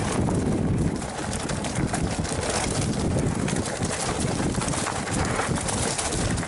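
Mountain bike riding down a rough trail: a steady low wind rumble on the mic, with constant rattling and knocking of the bike over the ground.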